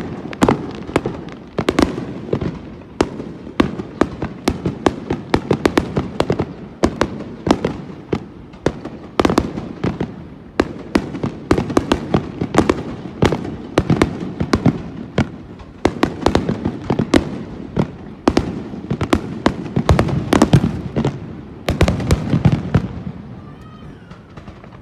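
Fireworks going off: a dense, irregular run of sharp bangs and crackles over a low rumble, thinning out near the end.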